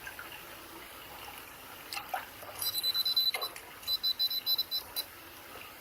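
Water trickling and running steadily, with two short runs of rapid high-pitched chirps or ticks partway through.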